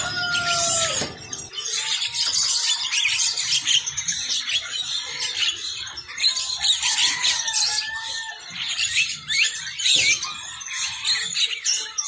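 Many caged birds calling at once: a dense chatter of short chirps, squawks and whistles. In the first second and a half, a rooster's long crow trails off.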